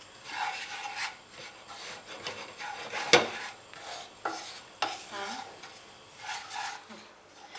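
Spatula stirring and scraping a dry mixture of breadcrumbs, grated Parmesan and parsley around a nonstick frying pan: raspy strokes about once a second, with a few sharp knocks of the spatula against the pan, the loudest about three seconds in.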